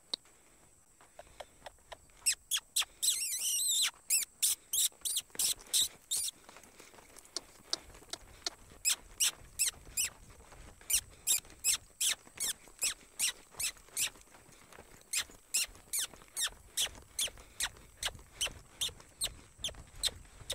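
Rhythmic squeaks and clicks, about three a second, from a horse's saddle and tack as the horse moves under the rider. There is a brief burst of squeaking about three seconds in.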